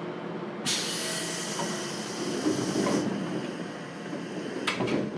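Pneumatic passenger doors of a JR Kyushu 415 series 1500 train closing. A sudden hiss of air starts under a second in and runs about two seconds, with the doors shutting heavily near its end. Two sharp knocks come near the end.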